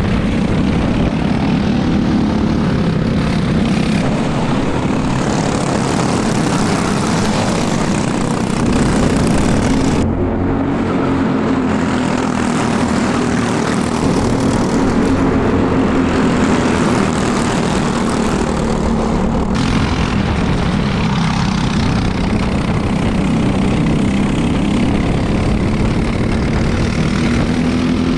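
Briggs & Stratton LO206 single-cylinder four-stroke kart engines running hard in a racing pack, the engine note rising and falling with speed, under heavy wind rush on an onboard camera.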